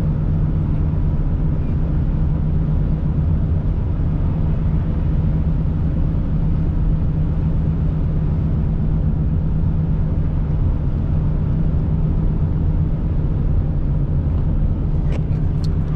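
Steady low rumble of a car driving, heard from inside the cabin: engine and tyre noise on a wet, slushy road.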